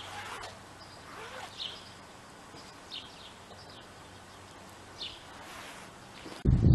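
Outdoor ambience with a few short bird chirps. Near the end a loud low rumble sets in.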